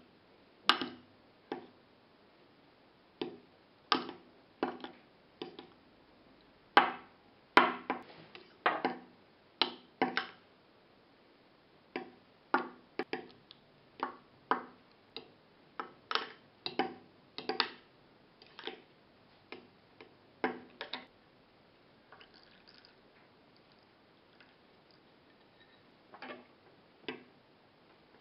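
Metal fork clinking against a ceramic bowl while beating an egg, oil and milk mixture: short, sharp clicks at an irregular pace of about one or two a second, pausing for a few seconds near the end.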